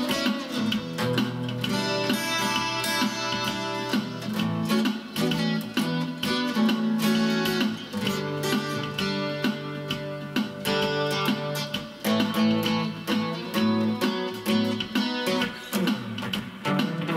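Acoustic guitar played through a Zoom G1 Four effects pedal into a Cube-10 amplifier on its JC Clean setting with a touch of reverb: a run of quickly picked notes over held low notes.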